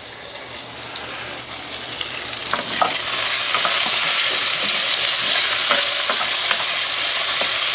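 Salt pork cubes sizzling in hot fat in a cast iron Dutch oven as the fat renders out, with a wooden spatula stirring and scraping them. The sizzle grows louder over the first three seconds, then holds steady, with small scrapes and clicks from the spatula.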